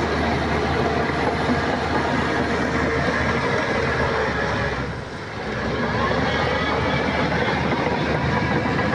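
Diesel engine of heavy earthmoving machinery running under load, with the clatter of the machine working; the sound eases briefly about five seconds in, then comes back.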